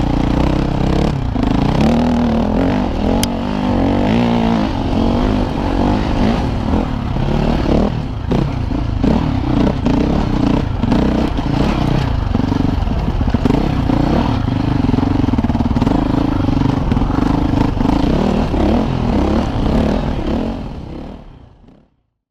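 KTM 450 EXC single-cylinder four-stroke enduro engine revving up and down under hard riding, heard onboard from a helmet camera, with clattering from the bike over rough ground. It fades out near the end.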